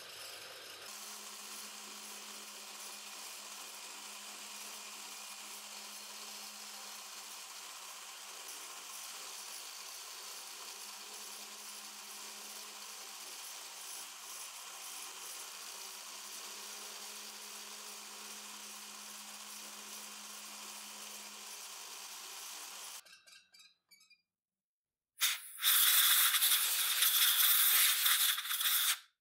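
Milling machine running with its end mill cutting into steel clamped in a vise: a steady machining sound with a faint low hum. About 23 seconds in it stops, and a couple of seconds later a loud hiss runs for about four seconds and cuts off.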